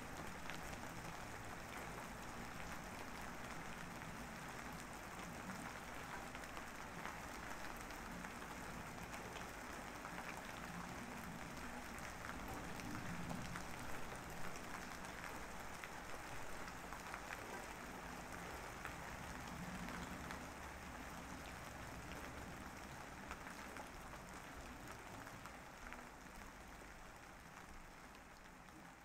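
Steady rain falling, an even hiss with fine drop ticks, fading gently toward the end.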